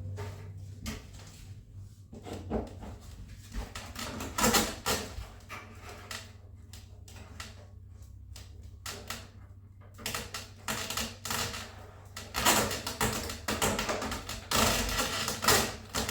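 Hands handling foam RC biplane parts on a squeaky foam stand: irregular clicks, taps and rubbing squeaks, getting busier and louder near the end, over a steady low hum.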